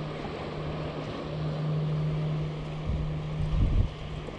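Spinning reel being cranked to retrieve a lure, a steady low whir over wind and surf noise, with a few low bumps about three seconds in.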